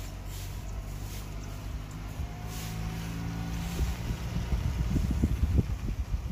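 A low motor hum, steady and then rising slightly in pitch, with wind buffeting the microphone in gusts from about four seconds in.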